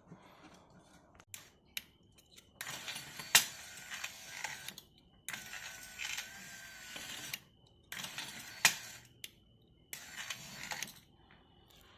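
Hands and tools working a car door's cable window regulator loose: bursts of metallic rattling and clattering with a few sharp clicks, in short spells with pauses between.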